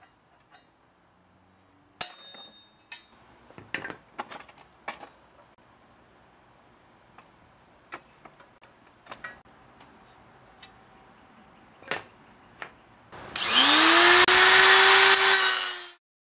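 Hammer blows on a punch driving a rusted hinge pin out of a folding bicycle frame: a quick run of sharp metallic strikes, then scattered single strikes. Near the end an electric angle grinder spins up with a rising whine and grinds into the steel frame tube for about three seconds, cutting off small brackets.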